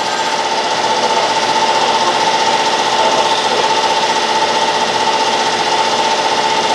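Brown & Sharpe 10x24 universal grinder running steadily: a constant high hum over a fast, even machine chatter.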